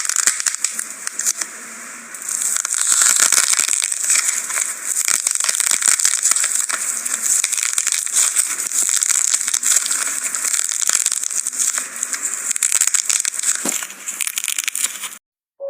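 Slime being squeezed and worked by hand, giving a dense, continuous crackle of small pops and clicks. It cuts off abruptly near the end.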